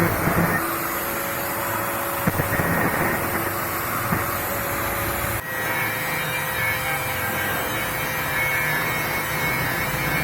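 Angle grinder running with a steady motor hum, cutting the metal of a bicycle fork. The sound changes abruptly about halfway through.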